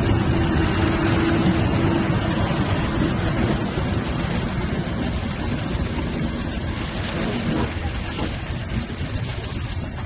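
English Electric Class 50 diesel locomotive's 16-cylinder engine running as the locomotive draws away, the sound gradually fading.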